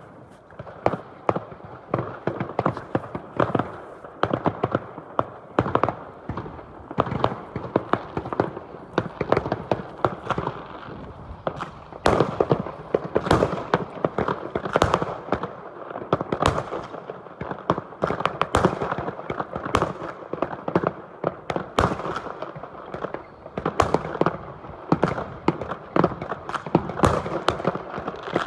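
Fireworks going off all around without pause: a dense run of bangs and crackles, several a second, some loud and some faint and overlapping.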